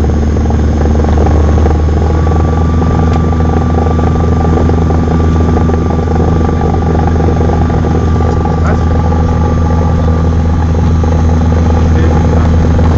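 Cessna 172's piston engine and propeller running steadily at low power on the ground after landing, heard loud inside the cockpit.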